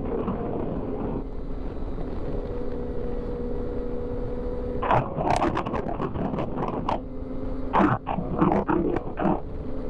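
Inline-four Kawasaki Ninja sport bike engine with an aftermarket exhaust, running at an even pitch for about five seconds, then a run of short, sharp bursts to the end.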